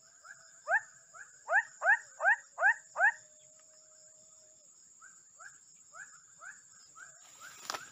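An animal calling near the microphone: a series of short, rising chirp-like calls, about three a second. The loudest come as six in a row in the first few seconds, then fainter ones follow. A steady high-pitched insect-like drone runs underneath, and a short crackle comes near the end.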